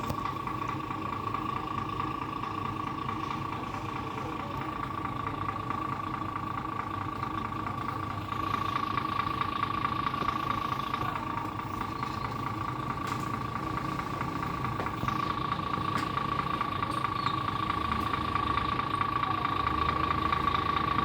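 A large engine idling steadily, with a constant high-pitched whine over the rumble. It gets a little louder about eight seconds in and swells gradually near the end.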